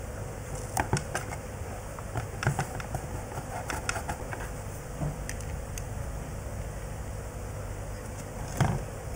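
Short plastic clicks and knocks from a Walkera Devo 7E transmitter's case being handled and closed up, in scattered clusters over a steady background hum. The loudest knock comes near the end.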